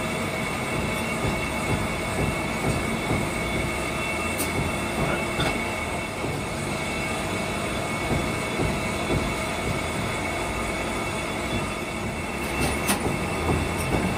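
Factory machinery running steadily in a crankshaft machining shop: a continuous mechanical din with a steady high whine, and a couple of sharp metallic clicks, one about four seconds in and one near the end.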